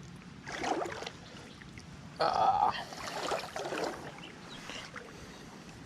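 Legs wading through shallow creek water, sloshing in a few splashy strides, the loudest about two seconds in.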